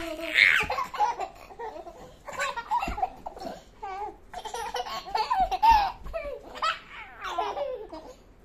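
A baby and a toddler laughing in repeated bouts of giggling, with a high-pitched squeal near the start and short pauses between bouts.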